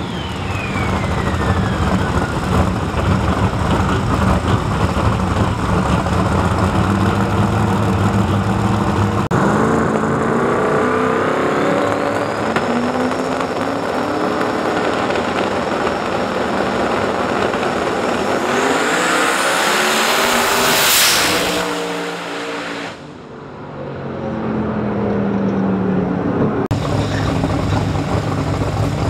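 Two Pro 275 drag cars' engines running loud through the burnout and staging, then revving hard on the launch: a rising whine builds to the loudest moment about three-quarters of the way in, then the sound falls away as the cars pull down the strip.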